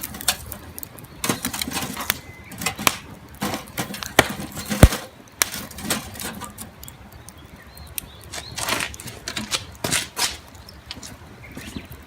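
Wood campfire crackling and popping: irregular sharp cracks, one louder pop a little under five seconds in.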